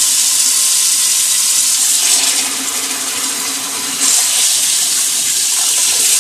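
Water running hard and steady from a tap, a little louder again about four seconds in.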